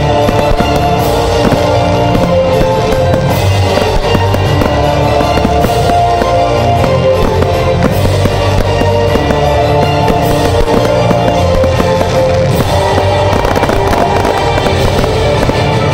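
Fireworks going off over music with held notes and a bass line: frequent bangs and crackling bursts throughout.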